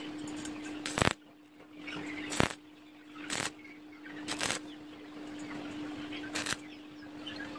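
Stick (arc) welder's arc being struck briefly against a steel post: five short crackling bursts, each a fraction of a second, over a steady hum.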